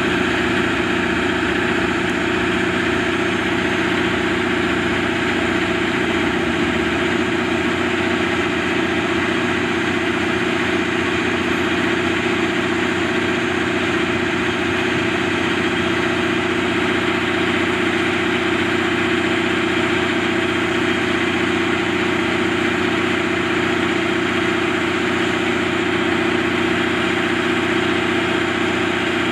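Diesel train engine idling at a station: a loud, steady hum with a fixed pitch that does not change.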